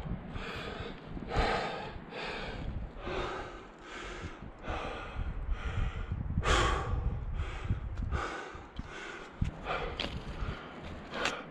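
A climber's heavy, rapid breathing under exertion, breaths in and out repeating about once a second, with one louder gasp a little past the middle.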